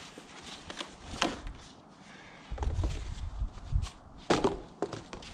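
A few sharp knocks and clacks, with shuffling in between and a low rumble in the middle, from handling the awning's frame and arms while opening it out.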